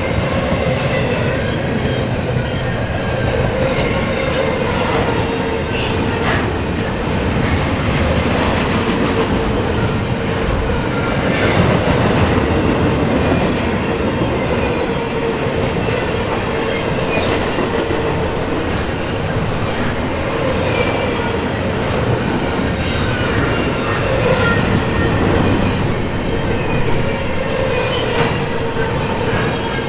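Double-stack intermodal container train rolling past at speed: a steady rumble of well-car wheels on the rails, with a thin wavering wheel squeal and an occasional sharp clank.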